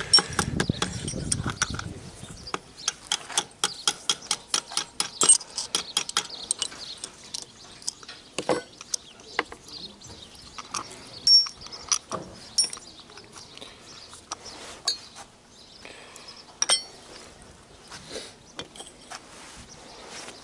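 Metal clinking and clicking as truck air-compressor parts and hand tools are handled: a quick run of clicks for the first several seconds, then scattered single clinks.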